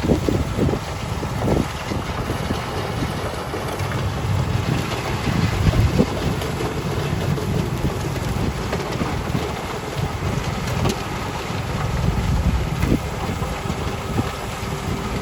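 Strong gusty wind buffeting the microphone over the low, steady rumble of heavy snow-removal machinery engines.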